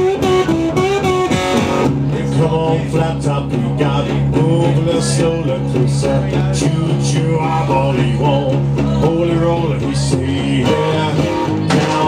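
Live blues song: a man singing while playing guitar.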